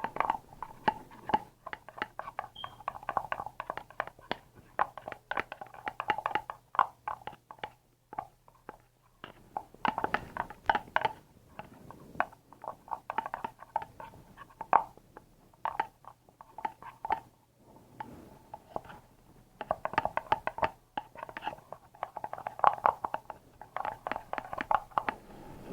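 Slime mixture being stirred in a small container: runs of rapid clicking and scraping, broken by a few short pauses.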